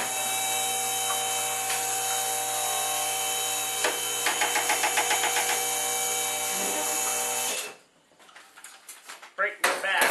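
Motorized lift table raising a snowblower: its motor runs with a steady hum, a quick rattle about halfway through, and then cuts off after about seven and a half seconds.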